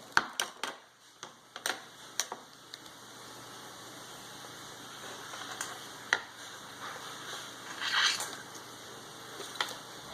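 Plastic toy packaging being handled and opened: sharp clicks and taps in the first two seconds, then a short crinkling rustle about eight seconds in, with a few more clicks.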